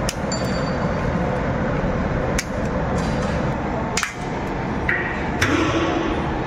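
Metal tools clinking against the steel bolts and casing of a cargo pump, four sharp clinks over a steady workshop noise. A short stretch of hissing noise comes in near the end.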